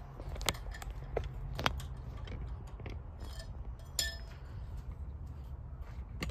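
A few light metallic clinks and clicks from tools being handled, one about four seconds in ringing briefly, over a steady low rumble.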